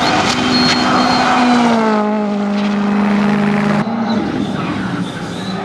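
Ford Fiesta R5 rally car's turbocharged four-cylinder engine at racing speed: the revs fall as it slows into a corner, then the note holds steady. About four seconds in, the sound changes abruptly to the car heard further off.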